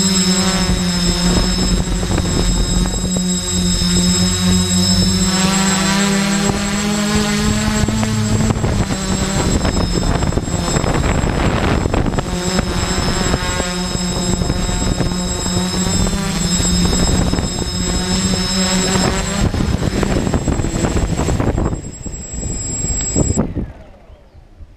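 Quadcopter's electric motors and propellers buzzing in flight, with a steady hum and a high whine. The pitch rises briefly and then drops about eight seconds in. Near the end the motors spool down and cut off as the copter lands.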